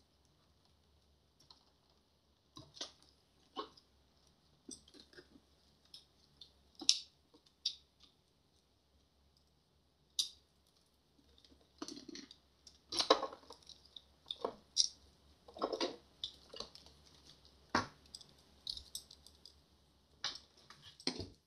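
Irregular clicks, light knocks and wire rustles as plastic wiring connectors are unplugged and the control board is lifted out of a Wind Rider e-bike's plastic housing, sparse at first and more frequent in the second half.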